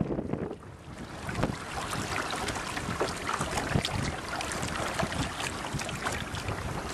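Wind buffeting the microphone over choppy water splashing and slapping against the hull of a Hobie Adventure Island sailing kayak under way.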